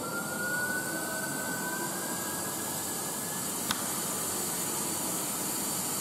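Steady rushing hiss of air flowing into a vacuum chamber as it is vented back up to atmosphere, with a faint whistle that slowly rises in pitch over the first half and a single sharp click a little past the middle.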